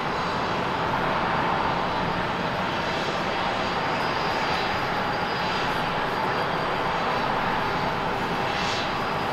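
Airbus A350 jet airliner taxiing, its Rolls-Royce Trent XWB engines at low taxi power: a steady rush of jet noise with a faint whine.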